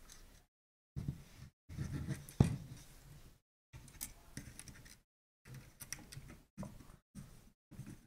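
Light clicks and rustles of handling the stripped-down camera body and its loose circuit board, in short bursts with dead gaps between them and one sharp click about two and a half seconds in.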